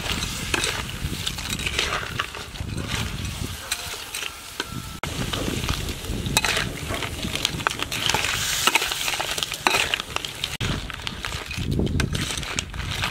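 Crabs in their shells being stir-fried in a steel wok: a metal spatula scrapes the pan and the shells clatter over a steady sizzle, with many short clicks throughout.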